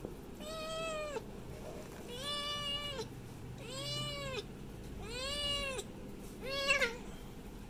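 Young cat meowing five times, each meow about a second long and arching up then down in pitch, with short gaps between them; the last meow, near the end, is shorter and the loudest.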